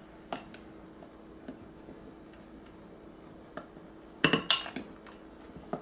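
Metal measuring spoon stirring dry flour mixture in a glass measuring cup: a few soft scattered clicks, then a quick run of clinks against the glass about four seconds in.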